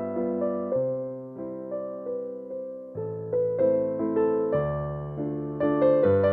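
Soft background piano music: chords and melody notes struck and left to decay, changing about every half second.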